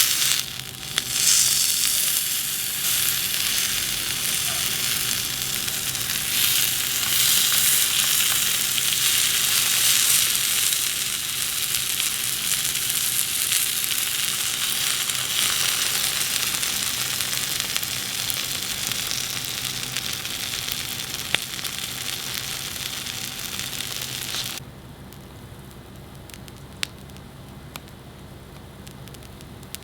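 Chikuwa topped with kimchi and cheese sizzling as it fries, with a dense, steady crackling hiss. The sizzling cuts off abruptly near the end, leaving a faint hiss with a couple of sharp clicks.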